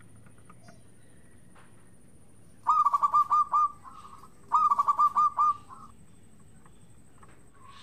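Zebra dove (perkutut) cooing: two phrases of quick repeated notes, each ending in a softer drawn-out note, starting a little under three seconds in.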